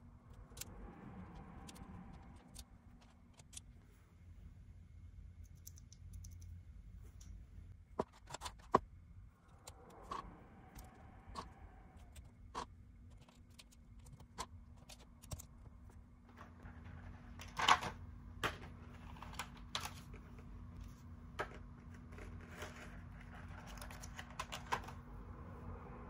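Gateron Brown mechanical key switches being pressed into the hot-swap plate of a Womier K87 keyboard: irregular sharp plastic clicks and snaps, two of them much louder, between stretches of soft handling and rubbing noise.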